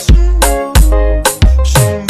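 Dance music with a heavy, steady bass beat and held notes, with a bass note sliding down in pitch near the end.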